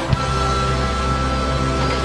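Dramatic background score: one low hit just after the start, then a sustained low chord with a steady high note held over it.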